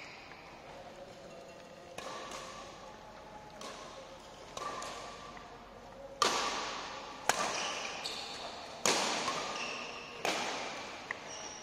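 Badminton rally: sharp smacks of rackets striking the shuttlecock, about seven in all at intervals of a second or so, each ringing briefly in the hall; the hits are louder from about six seconds in.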